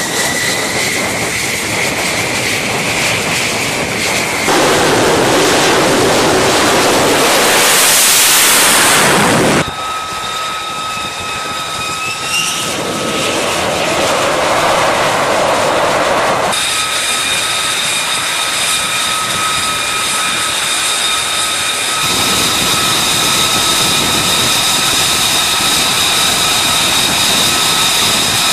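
F-35C's single Pratt & Whitney F135 turbofan running on the deck with a steady high turbine whine made of several tones, one of them rising gently near the start. From about four to ten seconds in the engine noise is much louder and rushing. The sound changes abruptly several times.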